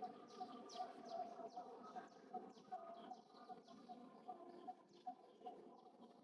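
Faint high-pitched animal chirps, each falling quickly in pitch, repeated about three times a second.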